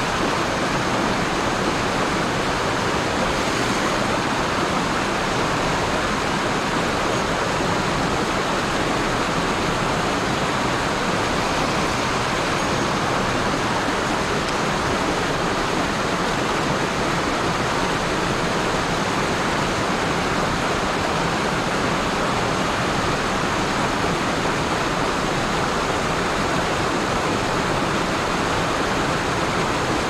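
Mountain headwater stream rushing over boulders and small cascades: a steady, even rush of water.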